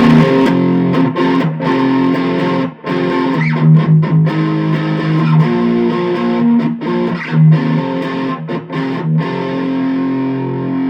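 Epiphone electric guitar on its rhythm (neck) pickup, played through a BOSS Katana Mini amp's high-gain Brown channel: distorted chords strummed and left to ring, changing every second or so. It stops abruptly at the end.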